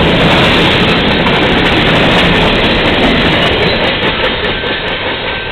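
Mixed freight train cars (boxcars, covered hoppers, tank cars) rolling past on the rails, a loud steady rumble and rattle of wheels and cars that grows fainter over the last second or so as the end of the train draws away.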